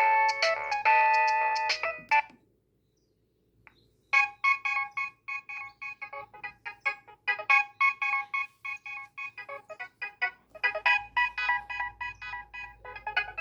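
Nokia 3120 mobile phone ringtones: one tune stops about two seconds in, and after a short silence the next begins, a fast run of short, clipped notes.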